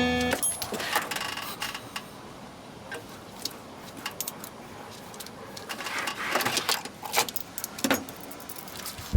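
Scattered light metallic clinks and rattles of parts or tools being handled, busier near the end. Background music cuts off abruptly just as it begins.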